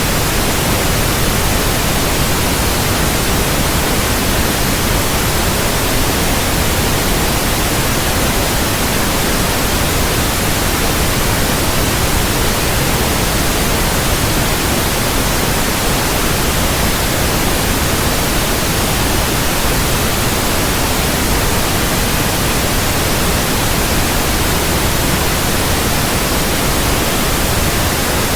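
Steady white noise: an even, unchanging hiss across all pitches, played as a sleep aid for calming a crying baby.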